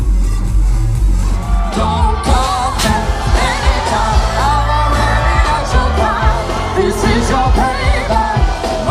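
Pop song with a singing voice over a heavy bass beat; the voice comes in about a second and a half in.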